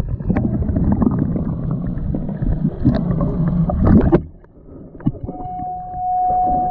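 Muffled rushing and gurgling of water heard by a camera held underwater beside a boat. About four seconds in, the camera comes out of the water and the sound drops off sharply. About a second later a steady high tone begins.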